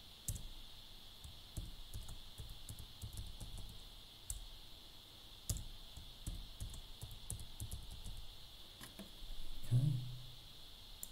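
Typing on a Toshiba laptop's keyboard: a run of short, irregular key clicks with brief pauses, over a steady high hiss.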